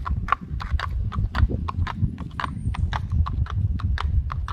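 Hooves of a Rocky Mountain Horse gelding under saddle, a quick, even clip-clop of about four to five hoofbeats a second in his smooth, ground-covering gait, over a low rumble.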